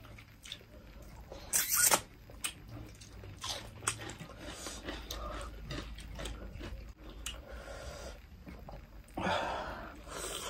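Close-miked eating sounds of two people eating with their hands: chewing, lip smacks and finger-sucking, with many small scattered clicks. A loud, short noisy burst comes about one and a half seconds in, and another, longer one near the end.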